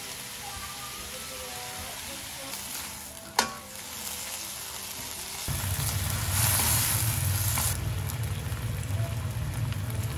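Food sizzling while it cooks, with one sharp knock about three and a half seconds in. About halfway through, a louder low steady rumble with a hiss over it starts and runs on.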